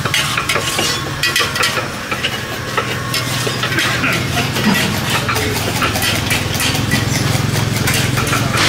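An engine running steadily at idle, its hum growing stronger about halfway through, with scattered clinks of metal cookware and utensils.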